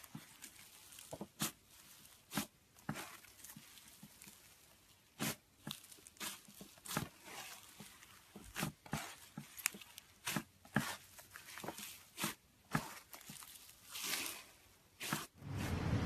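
Fluffy slime being squeezed and stretched by hand, giving off irregular sharp crackles and pops as it pulls apart. Near the end a steady low rumble takes over.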